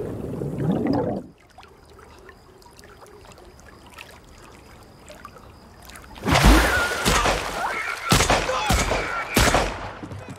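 Water splashing and thrashing in a swimming pool, loud from about six seconds in with several heavy splashes, while a person screams over them. Before that comes a few seconds of low, quiet sound.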